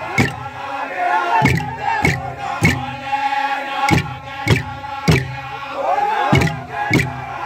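Group of men chanting together in a ceremonial song, with deep percussion strokes in groups of three and a short pause after each group.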